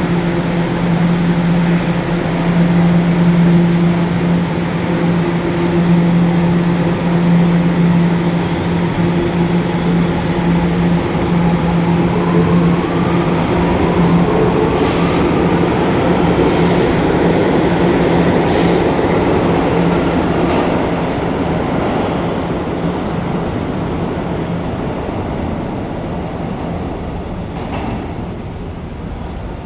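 R211 subway train pulling out of the station: a steady hum, then a rising motor whine as it picks up speed, a few clicks from the wheels over the track, and the noise slowly fading as it leaves.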